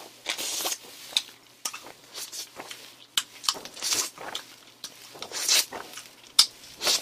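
Mouth sounds of whipped cream being licked and sucked off a cake's plastic collar strip: irregular wet slurps and smacks, a series of short hissy bursts with a few sharp clicks.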